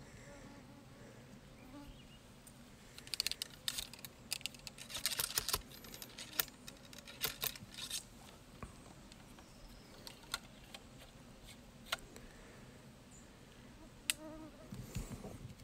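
A ramrod working in a muzzleloading rifle's barrel as it is reloaded: a dense run of clicks and scrapes a few seconds in, then a few single sharp clicks.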